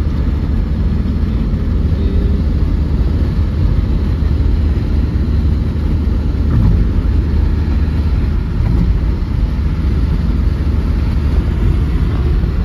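Steady low rumble of engine and tyre noise inside the cab of a Ford Transit Connect van driving along the road.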